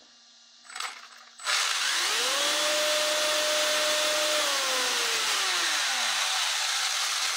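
Brushless inrunner electric motor and gear drive of an RC touring car at full throttle with its wheels spinning free in the air: a loud whir with a whine that rises, holds steady for about two seconds, then slowly falls away as it winds down.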